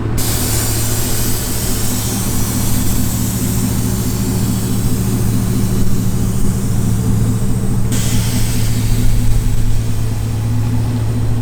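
Pickup truck engine idling steadily with a deep, even hum, over a hiss of noise.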